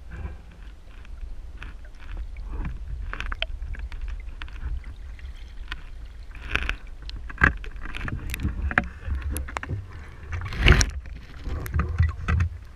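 Muffled water sound picked up by a GoPro in its waterproof housing underwater: a steady low rumble with scattered clicks and knocks. A louder thump and splash comes near the end as the camera is brought up to the surface.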